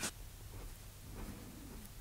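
Faint scratching of a steel G-pen dip nib on drawing paper: a few light, scattered strokes.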